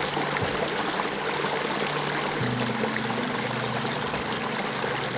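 Rushing stream water over background music, with low held notes that change about halfway through.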